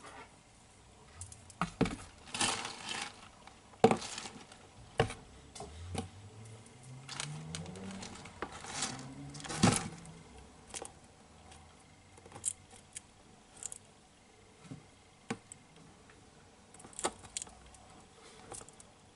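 Metal feeding tweezers clicking and tapping irregularly against a plastic tub, with scattered rustles, while leopard geckos are fed live larvae.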